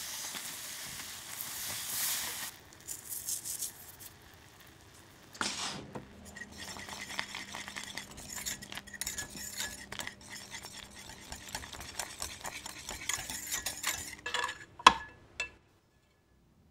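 Caramel sauce in an enamel saucepan: the boiling sugar syrup hisses and bubbles, then about five seconds in a sudden burst of hissing as the cream goes into the hot caramel. A small wire whisk then clicks rapidly against the pan as the sauce is stirred, with a sharp clink near the end.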